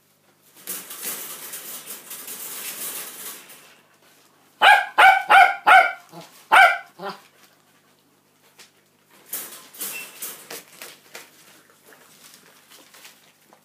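Adult cockapoo barking: about six sharp barks in quick succession in the middle, the first five close together. Before and after them, rustling and crinkling of newspaper as the puppies scramble over it at the food dish.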